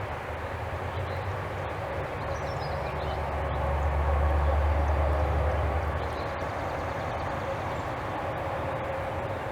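Low rumble, like distant passing traffic, that swells for a couple of seconds in the middle and fades, over a steady outdoor background hum, with a few faint bird chirps.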